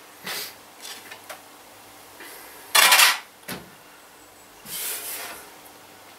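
Rummaging among small objects on a desk: short rustles and clatters of things being moved, the loudest a brief clatter about three seconds in followed by a dull knock.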